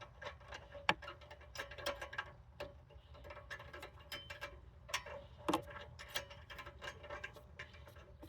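Irregular metallic clicks and ticks of a wrench being worked to unscrew a part that has just been broken loose, over a faint steady low hum.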